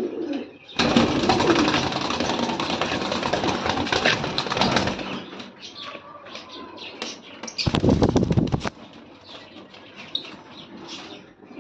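Pigeon wings flapping in two loud bouts: a long one of about four seconds starting about a second in, and a short burst of about a second near the eighth second. Faint bird calls in between.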